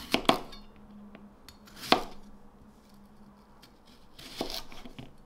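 Kitchen knife cutting raw potato into cubes on a cutting board: a handful of short, sharp knocks of the blade meeting the board, the loudest about two seconds in, over a faint low hum.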